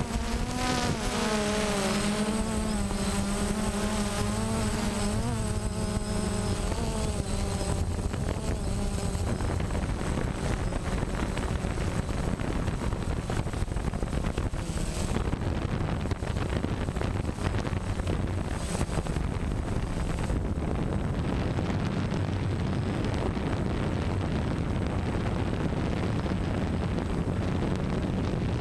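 DJI Phantom quadcopter's motors and propellers buzzing, heard from the camera mounted on the drone. For the first several seconds the pitch wavers up and down as the motors change speed; after that the buzz turns steadier and noisier.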